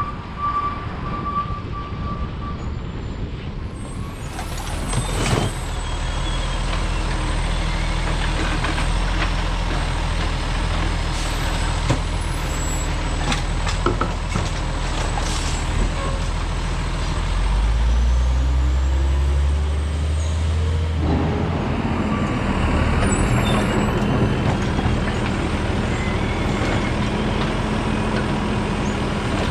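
Automated side-loader garbage truck working at the curb: its diesel engine runs steadily while the hydraulic arm grabs and lifts a wheeled cart, with several clanks from the arm and cart. A reversing beeper sounds for the first couple of seconds, and the engine note changes about two-thirds of the way through as the arm raises the cart.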